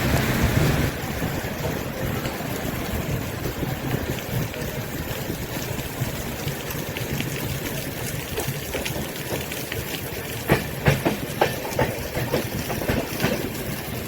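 Railway carriage rolling with a steady rumble, the heavy rain noise falling away about a second in. A quick run of clacks comes near the end as the wheels cross rail joints.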